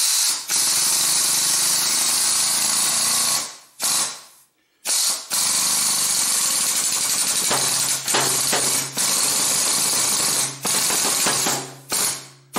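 Shop press being worked to push a ball bearing onto a compressor crankshaft: a loud, steady hiss. It stops for about a second around four seconds in, then starts again, and a low hum joins it about halfway through.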